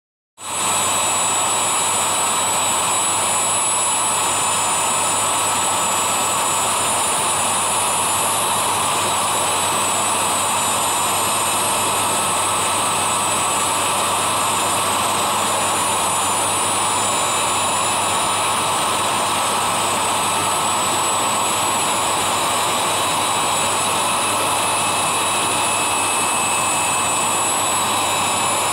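Stone bridge saw's large circular diamond blade cutting through a marble block under a water spray: a steady, loud grinding whine with thin high tones over it.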